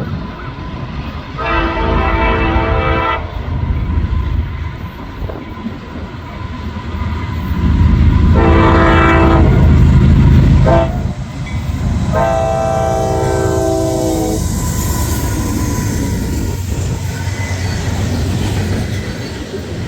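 Diesel locomotive's five-chime Nathan K5LA air horn sounding for a grade crossing: a long blast, a shorter one, a brief toot and another long blast. Under it the heavy rumble of the locomotives passing, loudest in the middle, then the freight cars rolling by.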